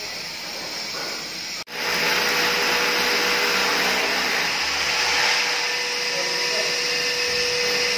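A vacuum cleaner running steadily with a constant whine, its hose held at an electric drill boring a bracket hole into the wall above a window to suck up the drilling dust. It comes in abruptly about a second and a half in.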